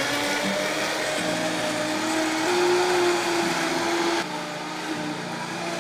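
Vitamix blender motor running at speed, blending a thick load of frozen banana, cauliflower rice and ice. Its pitch steps up and down as the load shifts, and the sound drops a little about four seconds in.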